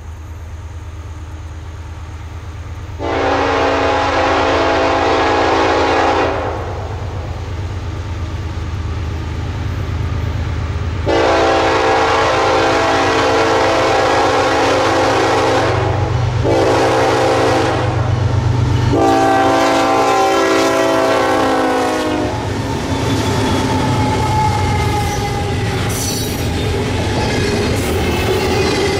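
Diesel freight locomotive's multi-chime air horn sounding the grade-crossing signal, long, long, short, long, over the locomotive's steady low engine rumble. After the last blast the train rolls by, with wheels clattering and squealing on the rails.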